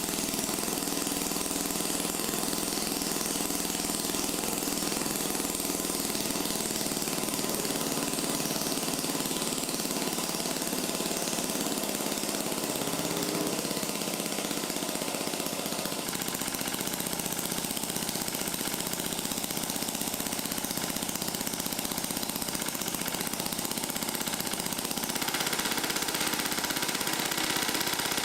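Electric arc welding: a steady, dense crackle of the welding arc, a little louder near the end.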